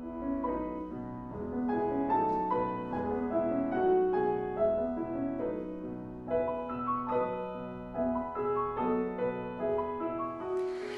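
Classical instrumental music with piano, a melody over held chords. It stops shortly before the end.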